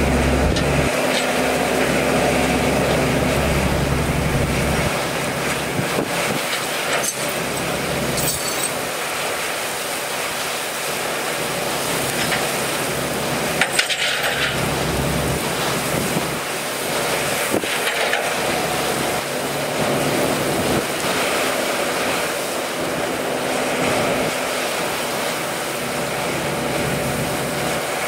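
Heavy hurricane rain and wind, with the flatbed tow truck's engine running low and steady underneath for the first few seconds and again about halfway through. A few sharp metallic clinks come about halfway through.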